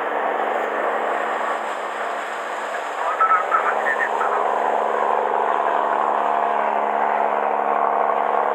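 Boat engines running steadily under wind and water rush, the engine tone growing fuller in the second half as another fishing boat passes close alongside.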